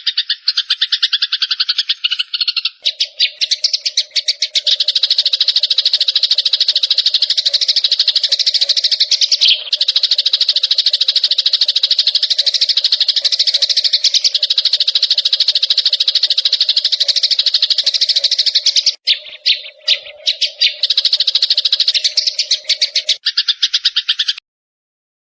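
Recorded small songbird giving a loud, very fast, unbroken chattering trill, high-pitched, with a steady low tone running under most of it; it cuts off abruptly near the end.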